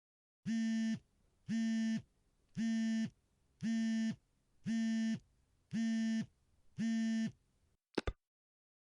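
An electronic buzzer sounding seven even, buzzy beeps, about one a second and each about half a second long, followed by two quick clicks near the end.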